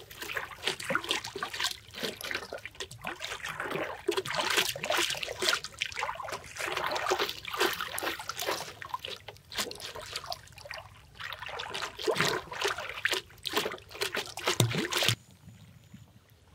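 Water splashing and sloshing at a river's surface: a dense, irregular run of small splashes that stops abruptly near the end.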